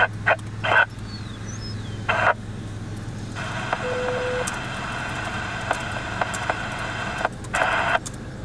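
Two-way amateur radio in the chase vehicle: a few short bursts of static, a brief beep about four seconds in, then several seconds of open-channel hiss that cuts out twice near the end.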